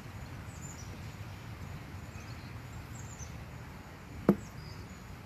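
A plastic chess piece set down with a single sharp click, about four seconds in, on a roll-up board over a slatted picnic table. Under it is a steady low outdoor background with a few faint high chirps.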